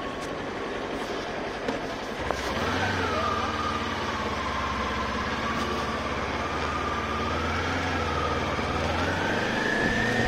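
Kawasaki Ninja 400's parallel-twin engine running at low revs as the bike creeps through town traffic, its low drone steadying about two seconds in. A thin, wavering high tone drifts along above it and rises near the end.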